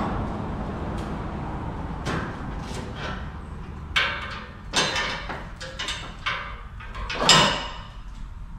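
A run of clanks and knocks, about five of them, loudest near the end, over a steady low background noise: loading gear being handled while a vehicle is readied to be winched onto a trailer.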